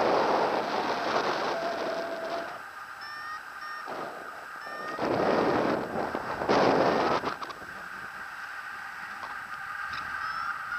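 Wind rushing over the microphone of a paraglider in flight, coming and going in gusts. Short, repeated electronic beeps of a flight variometer come in a few seconds in and again near the end.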